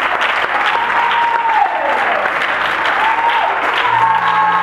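Church congregation applauding, with a voice crying out in long, bending calls over the clapping. A low steady note comes in near the end.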